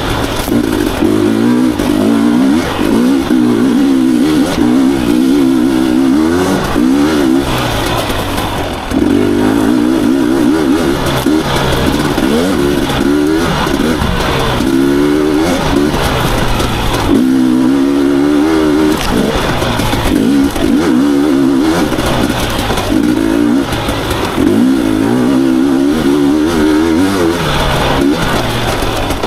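Husqvarna TE250i two-stroke dirt bike engine being ridden hard, its revs rising and falling every second or so, with a short drop in revs about eight seconds in.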